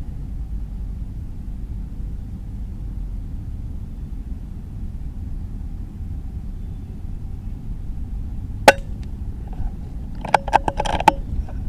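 Strong wind buffeting the microphone as a steady low rumble. About nine seconds in, a single sharp crack from a suppressed .22 PCP air rifle firing, followed a second and a half later by a quick cluster of clicks.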